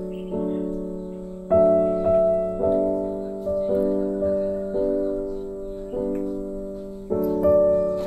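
Background music: a piano playing a slow sequence of chords, each struck and left to fade before the next.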